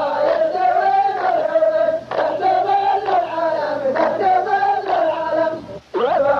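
A chorus of men chanting a qalta verse in unison, a slow, drawn-out melodic phrase repeated over and over, each new phrase starting about two seconds in and again near the end.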